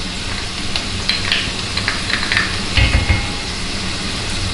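Diced onion, carrot, celery and freshly added garlic sizzling steadily in olive oil, with a wooden spoon clicking as it scrapes the garlic off a small ceramic dish, and a couple of dull knocks about three seconds in.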